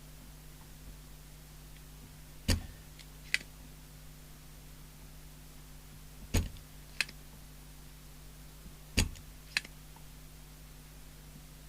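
Three pairs of sharp clicks from hand tools at work on a CB radio's circuit board, the first click of each pair the louder, about three seconds between pairs, over a faint steady hum.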